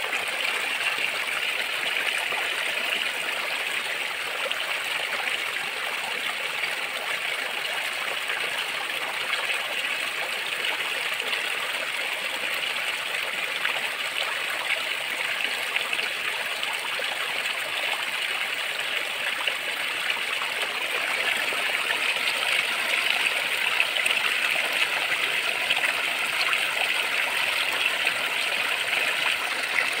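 Small rocky stream splashing and rushing over and between stones, a steady, continuous water noise that grows a little louder in the last third.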